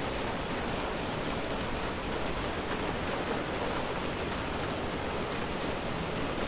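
Steady rain falling on a street, an even hiss of drops on hard surfaces with faint scattered drip ticks.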